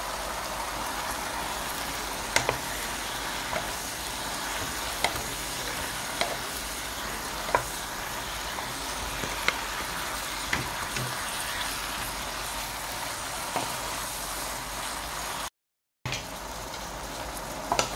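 Chinese kale and holy basil stir-frying in sauce in a pan, a steady sizzle with scattered clicks of the wooden spatula against the pan as it is stirred. The sound drops out for a moment near the end.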